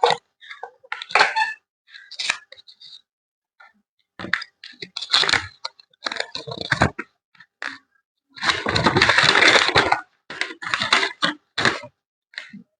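Phone packaging being handled and opened: irregular bursts of rustling and crackling, with a longer stretch of rustling about eight seconds in.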